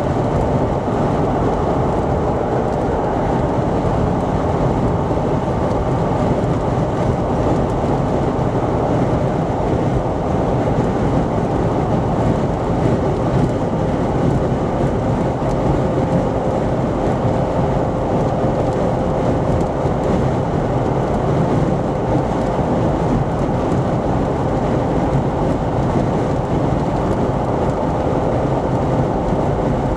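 Steady road and tyre noise heard from inside a car cruising on a highway, a deep even rumble, with a faint steady hum joining in about halfway through.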